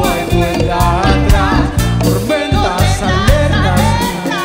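Live reggae band music: a full band with a steady beat, and a sung vocal line over it.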